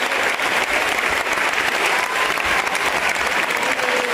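Large audience applauding steadily: a dense clatter of many hands clapping, with a few voices faintly heard over it.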